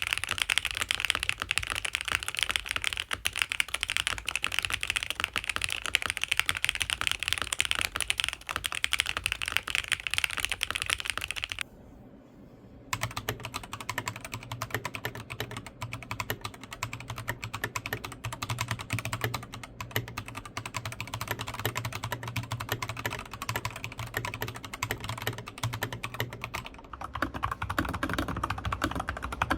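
Fast typing on mechanical keyboards, dense keystrokes throughout. For the first twelve seconds it is a MelGeek Modern 97 with a bright, clacky sound. After a brief pause it switches to a Magic Refiner MK31 with a deeper, thockier sound, and an Epomaker TH80 Pro takes over near the end.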